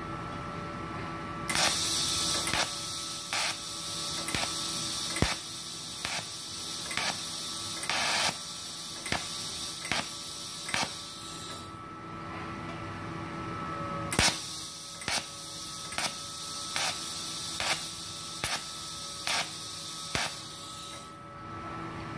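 TIG welding arc from a Multipro TIG 200A-SA inverter welder, hissing in two runs of several seconds each with a short break between, regular clicks about twice a second, and a faint steady hum from the machine underneath.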